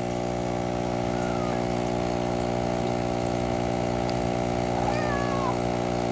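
Steady electric hum of aquarium equipment, such as an air pump or filter motor, unchanging throughout. Faint high falling squeaks are heard about a second in and again around five seconds in.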